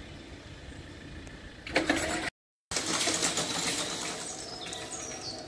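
Level-crossing warning bell ringing rapidly as the crossing activates, its red lights on ahead of the barriers lowering. The sound drops out completely for a moment before the ringing.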